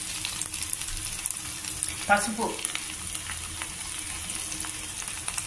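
Cut okra pieces sizzling in hot oil in a pan: a steady hiss with fine crackling.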